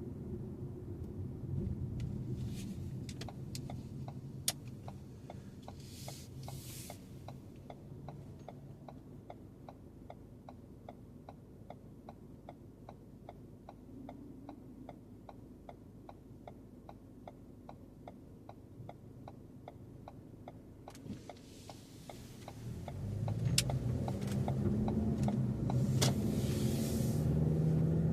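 Car's turn-signal indicator clicking at a steady pace over the low rumble of the car's cabin, then the engine and road noise rise near the end as the car pulls away.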